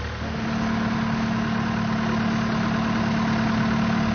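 Forklift engine running steadily, a constant engine drone that firms up a moment in and holds steady.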